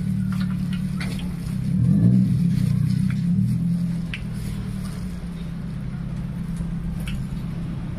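A motor vehicle's engine runs close by as a steady low hum, swelling louder with a shifting pitch about two seconds in, as if passing. A metal spoon gives a few light clicks against a steel mixing bowl.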